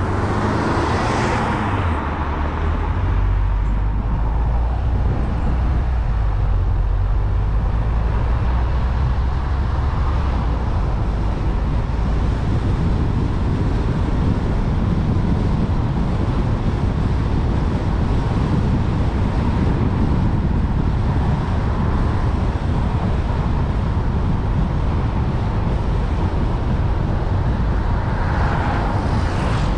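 A car driving along a residential road: a steady low rumble of engine and road noise. Louder swells of tyre hiss come about a second in and again near the end, the second as an oncoming car passes.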